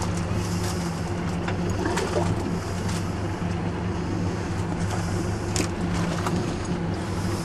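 Boat engine running steadily, a low hum that does not change, with a few small clicks over it, the clearest about five and a half seconds in.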